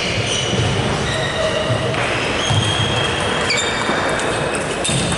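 Table tennis doubles rally: the ball knocking back and forth off bats and table, over steady background noise from a large hall.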